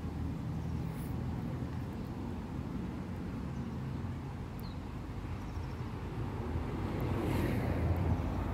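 A motor vehicle's engine running close by, a steady low rumble that grows louder near the end as it comes nearer.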